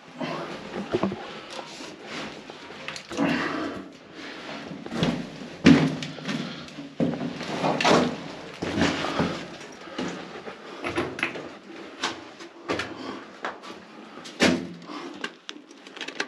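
Irregular knocks, scrapes and rustling, with no steady sound, typical of someone moving about and handling things among debris.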